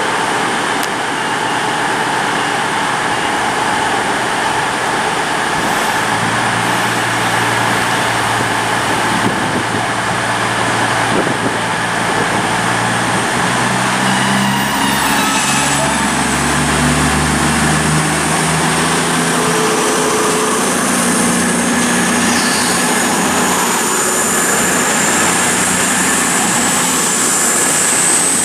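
Diesel engines of a CrossCountry Voyager diesel-electric train (a Class 220 and a Class 221 coupled) running alongside the platform, with a steady heavy rush of noise. The engine note shifts in pitch through the middle, and a high whine rises steadily over the last several seconds.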